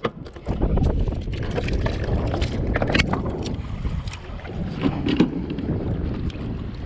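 Wind buffeting the microphone on a kayak on choppy water, a steady low rumble, with a few light knocks and clicks of handling around the middle.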